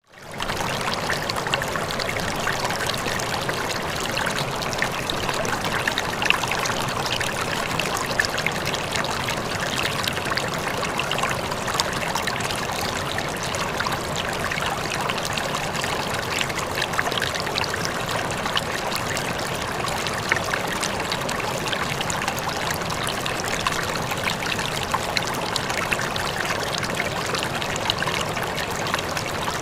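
River water flowing over rocks, a steady rushing and splashing stream.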